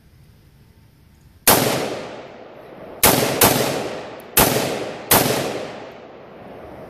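A Palmetto State Armory AR-15 rifle firing five semi-automatic shots at uneven intervals, each with a decaying echo. The first comes about a second and a half in, and two follow close together around the three-second mark.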